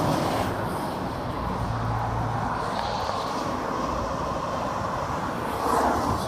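Passing road traffic: the steady rush of tyres and engine noise as a car transporter lorry goes by below, its engine hum strongest about two seconds in.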